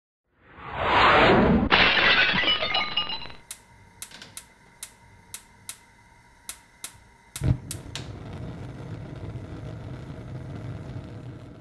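Sound effects: a loud crash with ringing clinks, then about ten sharp clicks spaced over several seconds with a low thud among them, then a steady low rumble.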